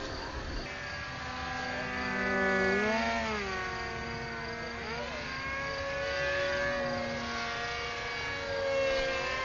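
Small model aircraft's engine buzzing overhead with a steady whine, its pitch dipping and climbing back twice as it swoops past.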